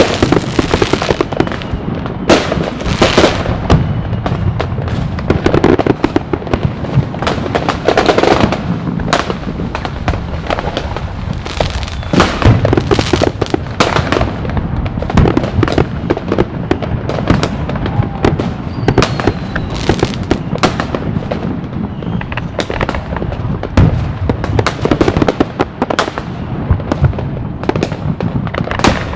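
Fireworks display going off continuously: a dense, irregular barrage of bangs and crackles over a constant low rumble, with a few faint whistling rockets rising in pitch.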